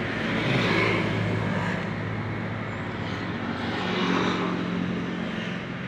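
Road traffic: motor vehicle engines running past, a steady low hum that swells about a second in and again around four seconds.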